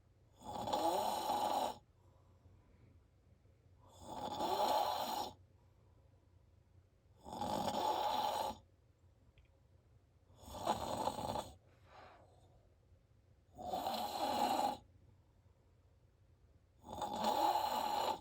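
A man snoring really loud: six snores at an even pace, about one every three and a half seconds, each lasting a little over a second.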